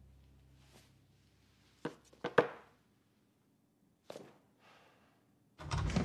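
A piano song's last note dies away. Then come a few sharp clicks and knocks in a quiet room, the loudest about two and a half seconds in. Near the end a door is pushed open with a heavier, deeper thud.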